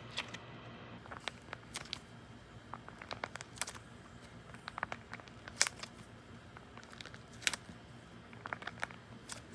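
Crunchy soap-bar squishy being squeezed in the hands, giving irregular crackling crunches; the sharpest snaps come a little past halfway and again near three-quarters of the way through.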